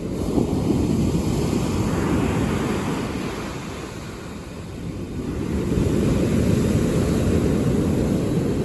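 Mediterranean surf breaking on a pebble beach: two waves swell and wash in, one in the first few seconds and another from about halfway, with a dip between them. A steady low rumble runs underneath.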